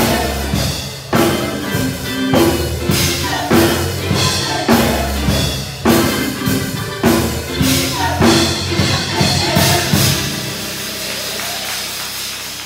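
Gospel praise team singing with a band, drums and tambourine keeping a strong beat a little over once a second. About ten seconds in the beat stops and the music drops to a quieter held sound.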